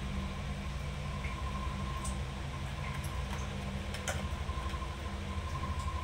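A steady low mechanical hum with a thin high whine running through it, and a few faint clicks about two, three and four seconds in.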